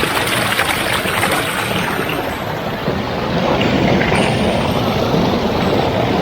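Steady rushing roar of a large waterfall's falling water, mixed with wind buffeting the microphone, swelling a little past halfway.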